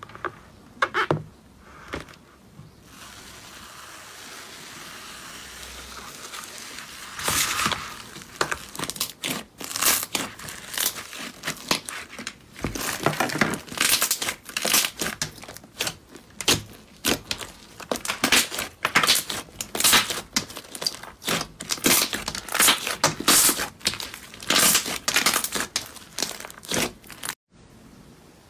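Slime being squeezed and kneaded by hand, with crackling, popping squelches as trapped air bursts out, about one or two a second. Before that comes a stretch of faint steady hiss.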